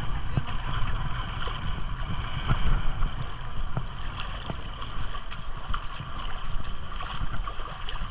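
Shallow sea water sloshing and lapping, with wind buffeting the microphone in an uneven low rumble.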